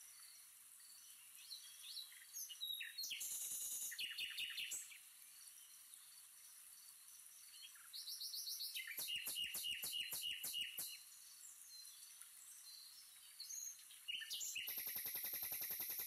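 Small birds chirping in three bursts of fast, high, repeated notes, with faint background noise between the bursts.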